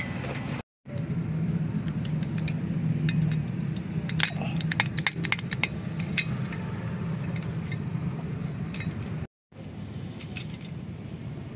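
Small steel jack parts clinking and tapping as they are handled and fitted onto a hydraulic bottle jack's pump-lever bracket. The clinks come in a quick run in the middle and a few more near the end, over a steady low hum. The sound cuts out briefly twice.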